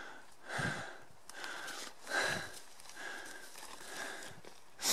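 Footsteps swishing through dry grass and brush at a walking pace, with a person's breathing close to the microphone and a sharp rustle right at the end.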